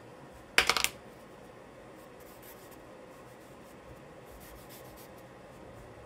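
Charcoal scratching and rubbing on paper. A quick, loud cluster of strokes comes about half a second in, followed by a few faint strokes.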